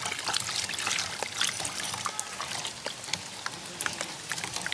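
A hand squelching and mixing water into a thick ground-spice paste in a metal basin: a wet, irregular sloshing full of small clicks.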